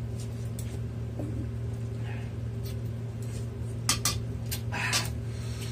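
Spoon clinking against a soup bowl a few times, bunched about four to five seconds in, over a steady low hum.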